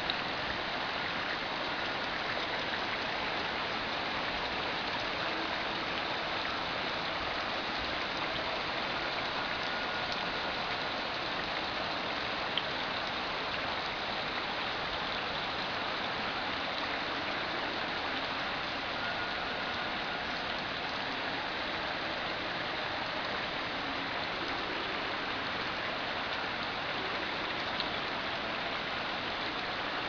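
Steady rain falling on the surface of a pond, an even hiss of countless drops that never lets up.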